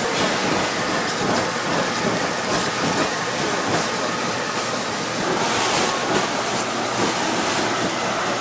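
Food sizzling on a hot cooking surface: a steady, rain-like hiss with fine crackling.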